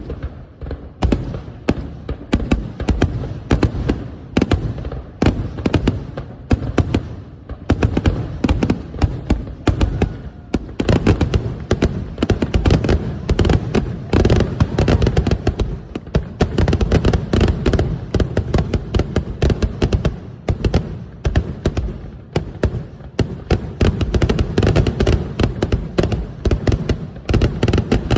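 Fireworks going off in a dense, continuous barrage of bangs and crackles, growing thicker and heavier about a third of the way in.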